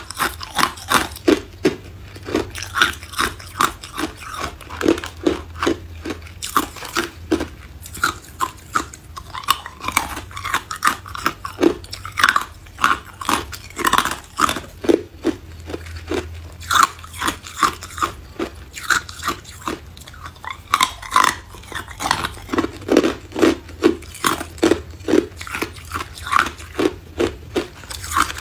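Person biting and chewing hard ice, a steady run of sharp crunches at about two a second.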